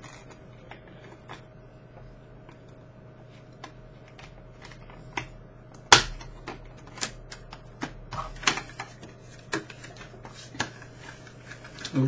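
Clear plastic clamshell package being handled around a laptop RAM stick: scattered crinkles and clicks of stiff plastic, with one sharp click about six seconds in and a run of clicks near the end as it is pressed closed.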